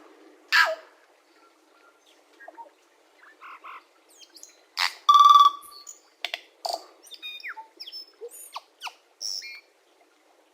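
Tui (Prosthemadera novaeseelandiae) singing: a loud harsh call about half a second in, then a varied string of short clicks, whistled notes sliding down in pitch and a loud buzzy note held for about half a second around five seconds in.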